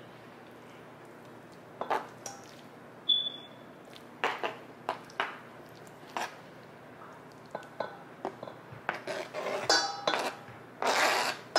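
Kitchen utensils and dishes clinking and knocking against each other while food is prepared: scattered irregular knocks, a brief high ping about three seconds in, and a busier run of ringing clinks near the end.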